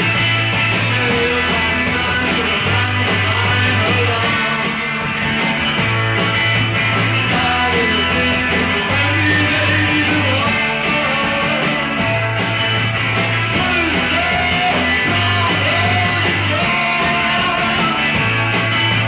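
Live rock band of two electric guitars, bass guitar and drums playing. A bass line of long held notes changes pitch every second or two under the guitars and a steady wash of cymbals.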